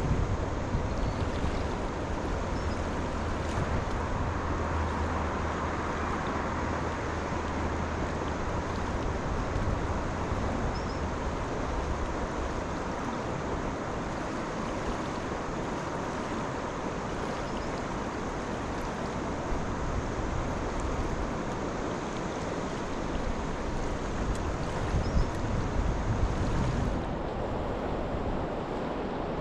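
Steady rush of flowing river water, with a low wind rumble on the microphone during the first third.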